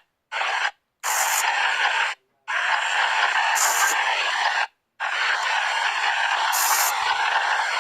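Spirit box radio sweeping through stations: a steady hiss of static, broken by short dead gaps where the sweep mutes, about three times.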